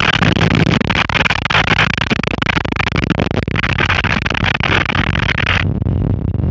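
Cessna 152's four-cylinder Lycoming engine and propeller running at low taxi power, heard from inside the cockpit. A steady hiss lies over the engine and cuts off about five and a half seconds in.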